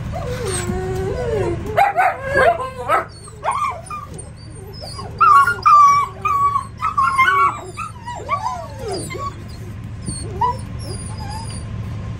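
A litter of shepherd puppies whining and yipping: many short cries that rise and fall in pitch, overlapping, busiest in the middle stretch and thinning out toward the end.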